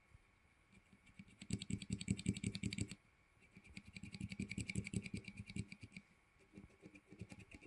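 Cherry MX linear key switches (Red, Black and Dark Grey) on a switch tester, pressed rapidly and repeatedly in three runs of quick keystrokes with short pauses between them. There is no click, only the plain clack of linear switches bottoming out and returning.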